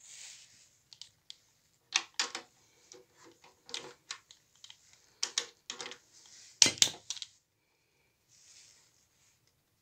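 Hand tools and metal engine parts clinking and knocking together during engine disassembly: a string of sharp clicks with a brief metallic ring, the loudest about two-thirds of the way through, with a short rustle at the start and near the end.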